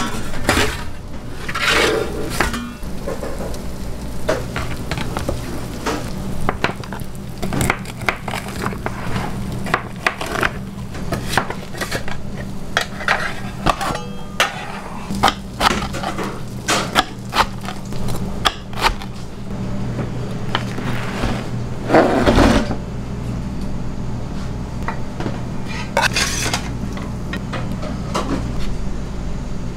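Steel Detroit-style pizza pans, a metal peel and a spatula clattering, knocking and scraping at irregular intervals over a steady low machine hum. One louder, longer scrape comes about two-thirds of the way through.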